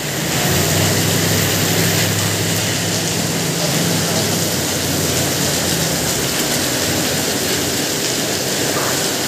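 Typhoon wind and heavy rain make a steady, loud rushing hiss. A low steady hum runs under it through the first half and fades out about five seconds in.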